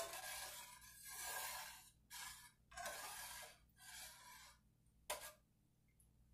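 Metal spoon scraping and stirring around a metal cooking pot holding vegetables and broth, in about five strokes roughly a second apart and one short scrape near the end.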